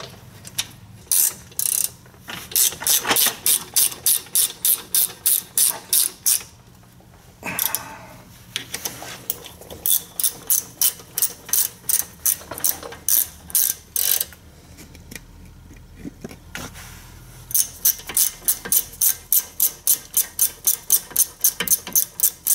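Ratchet wrench clicking in quick even runs, about three to four clicks a second, as small bolts on the front brake and strut are run down and tightened. Three runs with short pauses between them.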